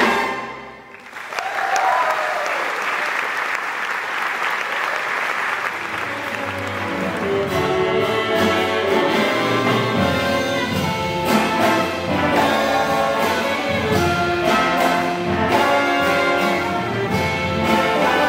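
The audience applauds for about five seconds. Then a jazz big band starts up, with a baritone saxophone out front over brass and rhythm section.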